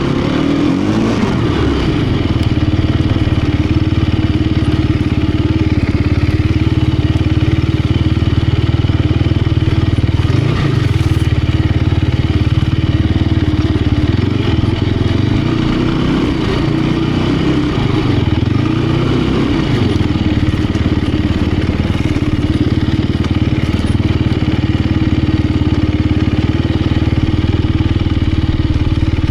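2018 Sherco 250 SEF Factory's single-cylinder four-stroke engine running hard under load off-road, its revs rising and falling several times with the throttle.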